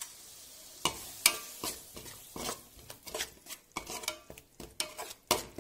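A spoon scraping and knocking against a metal pot as curd is stirred into a thick onion-tomato masala, the strokes starting about a second in, with the masala sizzling lightly underneath.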